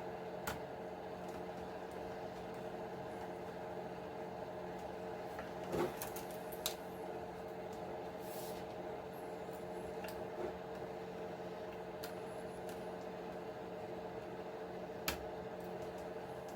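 Steady mechanical hum, with a few light clicks and knocks of small parts being handled while an RC truck is taken apart. One sharp click comes about half a second in, a small cluster comes around six seconds in, and another click comes near the end.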